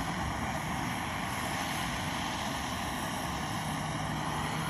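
A steady mechanical running noise with constant tones and no rise or fall, from a machine or engine running nearby.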